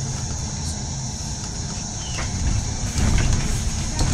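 Mercedes-Benz Citaro G articulated city bus heard from inside the cabin: its diesel engine and running gear rumble as the bus pulls away and grows louder about two and a half seconds in. A sharp knock comes near the end.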